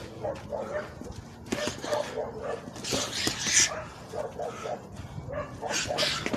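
A dog barking and yapping repeatedly in short calls, over sharp bursts of noise from gloved punches during light boxing sparring.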